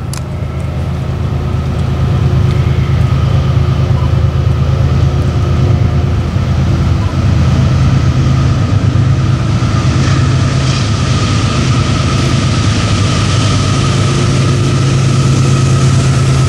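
Diesel locomotives of an approaching freight train, a steady low rumble that swells over the first couple of seconds and then holds loud.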